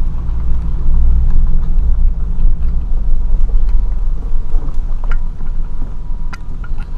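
Car engine and road rumble heard from inside the cabin while driving slowly along a dirt camp road. The low rumble is heaviest in the first few seconds and eases off, with a few sharp clicks near the end.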